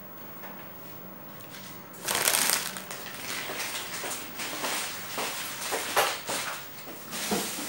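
Crinkling and rustling of a bag or packaging being handled, with scattered sharp clicks and knocks, starting about two seconds in.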